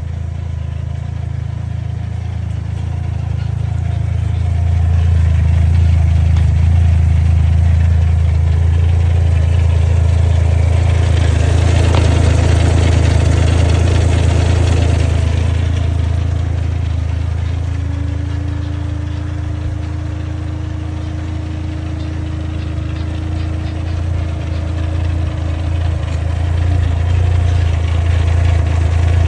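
Vehicle engine idling with noise from its clutch, which has upgraded clutch fingers. The sound swells about four seconds in and eases off again after the middle, and a faint whine, rising slightly in pitch, runs through the later part before stopping.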